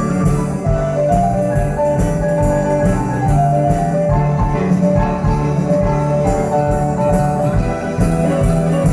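Live band music playing loudly, with a steady drum beat under held melodic notes and a bass line.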